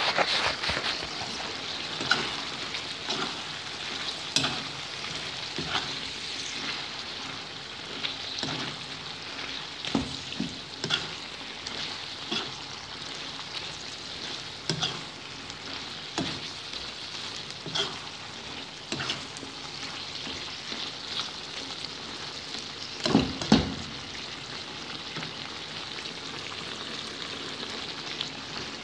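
Lamb liver adobo sizzling in a wok while a perforated metal spatula stirs it, scraping and clacking against the pan again and again. There is a loud burst of knocks about 23 seconds in, and near the end the stirring stops, leaving only the steady sizzle.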